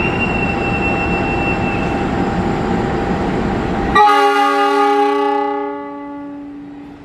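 A train running through with a steady rumble and a high thin tone for the first two seconds. About four seconds in, a diesel locomotive's multi-tone horn sounds loudly as a chord, then fades away over the next few seconds.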